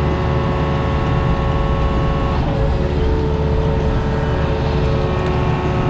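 Diesel engine of a compact construction machine running steadily, with steady whining tones above its drone that shift in pitch about two seconds in.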